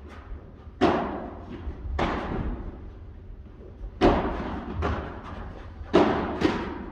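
A padel rally: the ball is struck back and forth with padel rackets, about eight sharp hits at uneven intervals. Each hit rings out in the echo of a large indoor hall.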